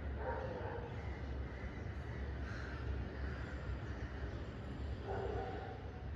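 Two short animal calls, one near the start and one about five seconds in, over a steady low rumble.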